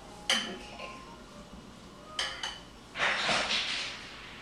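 A spoon stirring diced tomato mixture in a bowl: a few sharp clinks of the spoon against the bowl, then a longer scraping, stirring sound about three seconds in.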